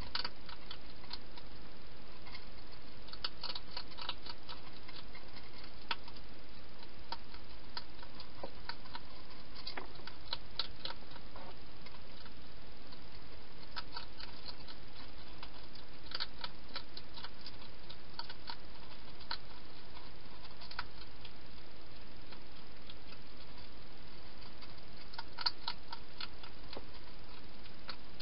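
A hedgehog eating from a bowl, heard as irregular clusters of small clicks and crunches over a steady hiss.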